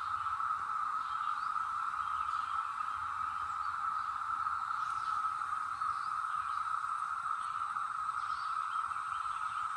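Chorus of Brood X periodical cicadas: a steady, unbroken drone at one even pitch, with faint short chirps above it.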